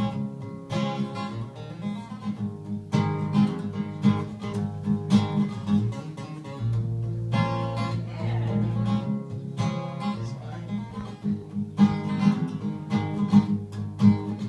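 Acoustic guitar being strummed through a chord progression, with the chords changing every few seconds.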